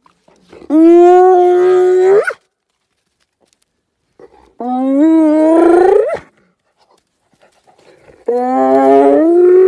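Spotted hyena calling: three long, loud calls, each held at a steady pitch and then rising at its end.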